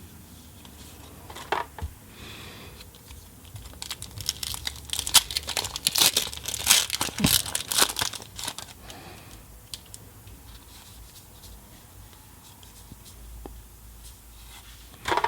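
A foil Magic: The Gathering booster pack wrapper being torn open and crinkled, densest in the middle. A few light clicks come from the cards being handled.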